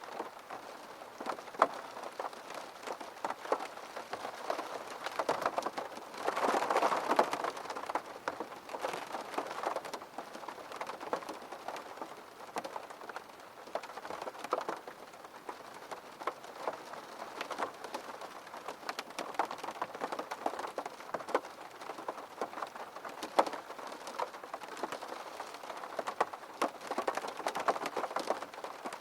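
Steady rain, with many individual drops ticking sharply on a hard surface. It swells louder for about a second and a half, roughly six seconds in.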